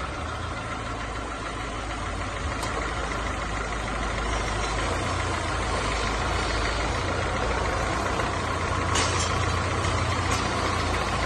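Renault Duster engine idling steadily with the accessory belt running quietly, with no belt squeal, just after a new belt tensioner has been fitted.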